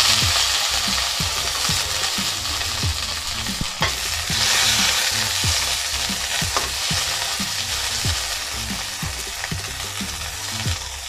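Asparagus sizzling in hot sesame oil in a wok, a steady hiss that swells again about four seconds in and then slowly settles.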